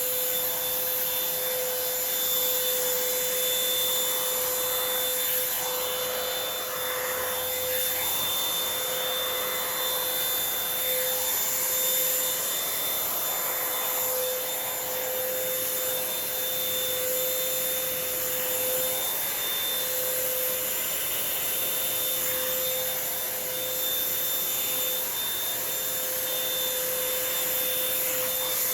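Revlon hot-air brush hair dryer running steadily: its fan blowing air with a constant motor whine.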